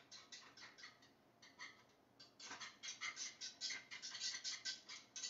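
Wire whisk scraping against a small pan as a cheese and milk sauce is whisked. The strokes are faint at first, then louder and quicker from about halfway, about four a second.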